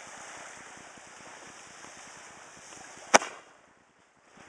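A small ground firework hissing steadily as it burns, then one sharp bang about three seconds in.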